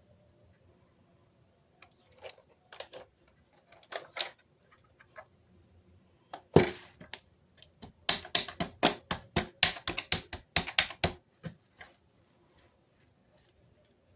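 Keys of a Dell computer keyboard clacking: a few scattered clicks, one louder knock about six and a half seconds in, then a quick run of key presses lasting about three seconds.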